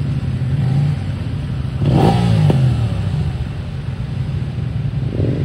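Off-road motorcycle engines running, with one bike revving hard about two seconds in as it goes down on the muddy track, and a short rev near the end.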